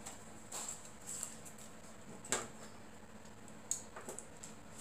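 Faint clicks and light rattles of hands handling the small plastic parts and wiring of an RC crawler chassis, with one sharper click about two seconds in, over a faint steady hum.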